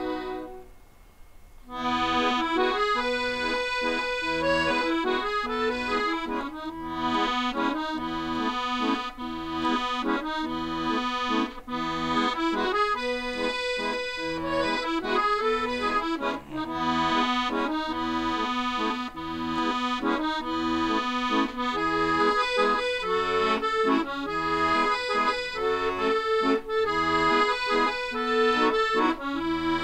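Chromatic button accordion playing a tune, a melody over bass and chord notes. A short break about a second in, then the playing resumes and carries on steadily.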